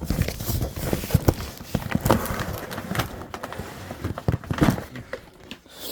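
Handling noise from cardboard boxes of fireworks being moved and opened: irregular knocks, thumps and rustling.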